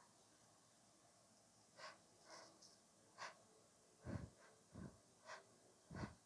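A woman's quiet sniffs and breaths during a sneezing fit, as she tries to keep them silent. About four, five and six seconds in come three short, muffled puffs of breath.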